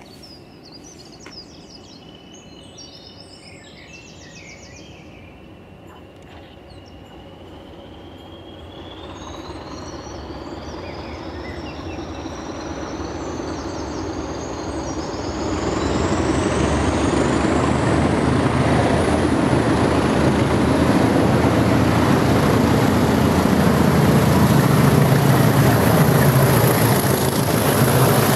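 A pair of Class 20 diesel locomotives approaching under full power with a train of nuclear flask wagons. Their engine noise grows steadily louder and is loud and steady by about halfway, with a high whistle that climbs slowly in pitch throughout. Birds chirp faintly near the start.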